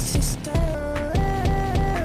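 Electronic music: a stepping synth melody over deep kick drums that drop in pitch, with a burst of bright hi-hat-like hiss near the start.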